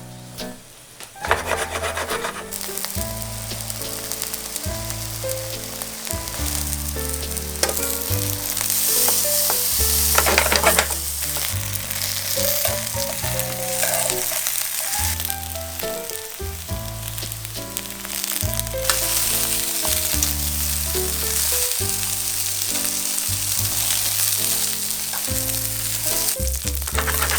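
Eggplant halves sizzling in oil in a frying pan, growing louder for a few seconds near the middle, with background music underneath.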